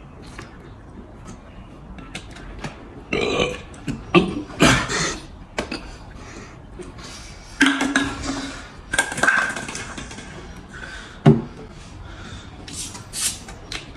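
A person belching repeatedly from drinking cola: about six burps spread over several seconds, one near the middle drawn out with a steady low pitch.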